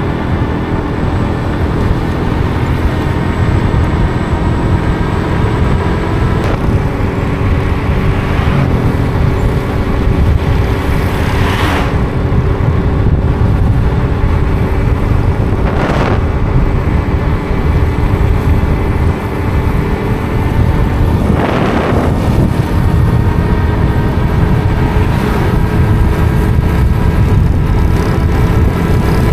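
Steady vehicle engine and road noise with a constant low hum. Three brief whooshes rise and fade, about two-fifths, halfway and three-quarters of the way through.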